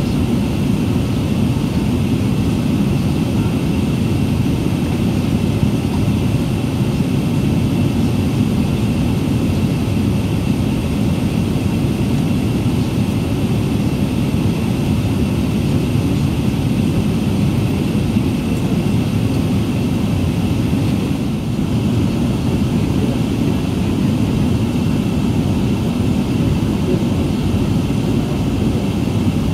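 Steady low rumble of an Airbus A380 taxiing, heard inside the cabin: engines at taxi power and cabin air, with a faint steady high whine above it.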